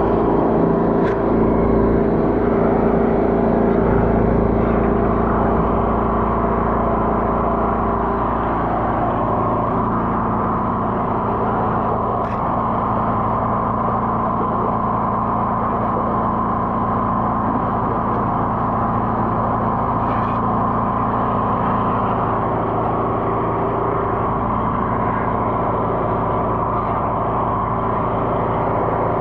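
Drain jetter's engine running steadily, driving the high-pressure pump while a root-blocked drain line is jetted out.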